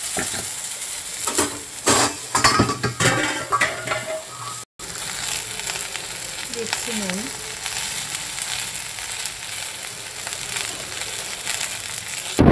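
Flat beans and fried brinjal sizzling in hot oil in a metal karahi. For the first few seconds they are stirred, with a utensil scraping and knocking against the pan. After a brief gap the sizzle continues steadily.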